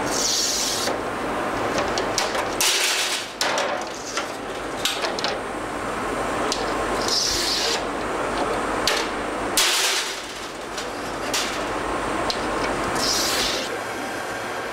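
A sheet of flat glass being worked by hand on a wooden table: short scratchy hisses every six seconds or so, sharp knocks and rattles of glass and tools, over a steady hum of glassworks machinery.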